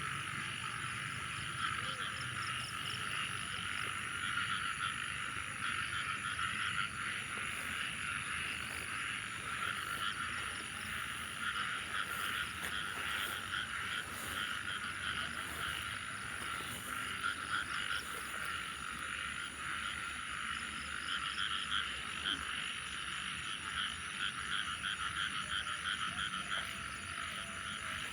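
A chorus of many frogs calling together in dense, fast-pulsing croaks, with a thin steady high-pitched tone above it. It is typical of frogs calling after heavy rain.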